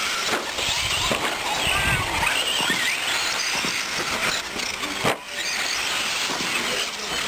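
Electric 1/10-scale 4WD short course RC trucks racing on a dirt track: their motors whine, rising and falling in pitch as they speed up and slow down, over a steady hiss of tyres and track noise.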